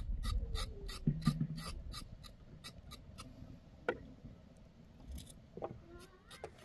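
Rhythmic rasping scrapes, about three strokes a second, that stop about three seconds in. A short, high wavering call comes near the end.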